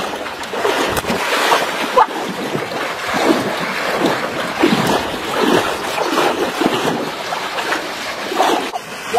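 Steady splashing and churning of river water, broken by many short splashes, as a person wades fast through it and a goose flaps on the surface.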